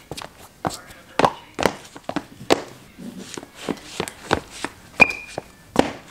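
Canvas sneakers stepping and shuffling on a tiled floor: a quick, irregular string of taps and scuffs, with one brief high squeak about five seconds in.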